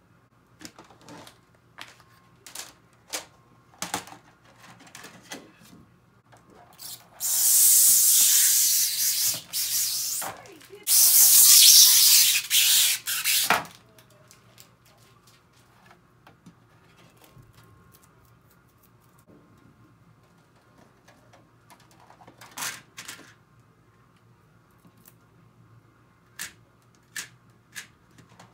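Protective plastic film being peeled off a clear acrylic frame pane: two long hissing peels of about three seconds each, between light handling clicks and taps on the frame.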